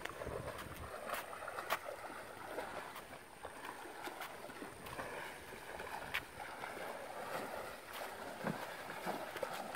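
A mustang wading through river water at a walk, its legs sloshing and splashing with each stride, with a few sharp clicks.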